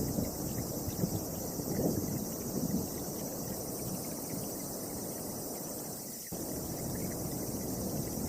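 Wind gusting hard against the microphone, a rough low rumble that swells and eases, under a steady high hiss. The sound changes abruptly about six seconds in.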